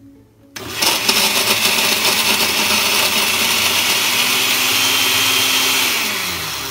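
Countertop blender switched on about half a second in, running at full speed as it grinds fresh and dried shrimp to a paste, then its pitch drops as it winds down near the end.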